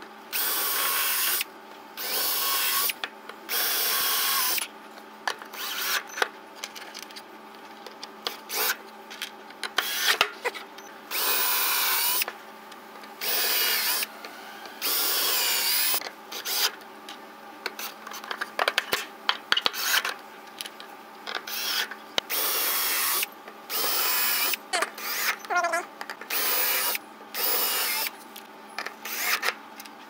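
Compact Milwaukee cordless drill driving wood screws through a pine board, in about twenty short bursts of a second or less with brief pauses and small clicks between.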